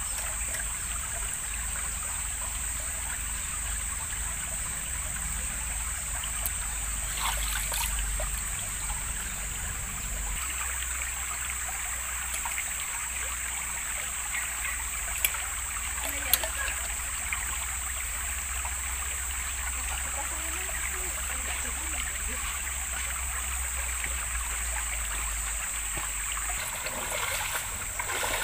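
River water flowing and trickling steadily, with a steady high-pitched tone above it; two sharp clicks about a second apart come midway.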